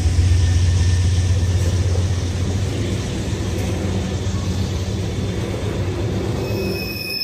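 Freight train of tank cars rolling past close by: a steady rumble and hiss of steel wheels on the rails, with the deep diesel rumble of the locomotives fading over the first few seconds as they pull away. High wheel squeal starts right at the end.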